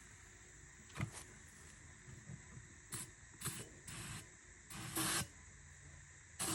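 Aerosol can of starting fluid being sprayed into a tractor tire in several short hissing bursts, the longest about five seconds in, to set up a fire bead-seating. A sharp click comes about a second in.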